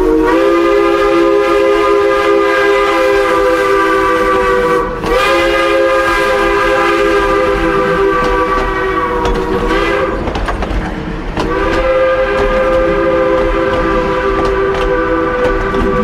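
Multi-note train whistle sounding a chord in three long blasts, the pitch lifting slightly as each blast starts, with a short gap before the third.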